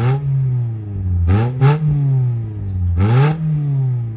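Mitsubishi Lancer four-cylinder engine through a newly fitted HKS axle-back exhaust, free-revved in quick throttle blips. Its pitch shoots up and slides back toward idle four times, twice in quick succession about a second and a half in.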